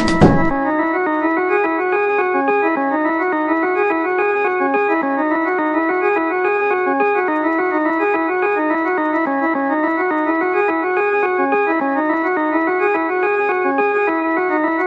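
Background music: an organ-like keyboard plays a melody of short notes stepping up and down in pitch. It opens with a short falling sweep as a beat-driven passage cuts off.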